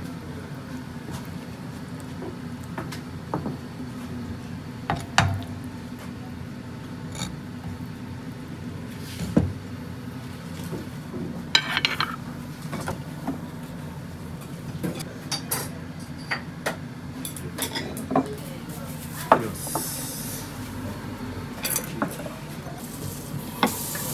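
Sushi-kitchen work sounds: scattered knocks of a knife on a cutting board and clinks of plates and utensils as sashimi is plated, over a steady low hum.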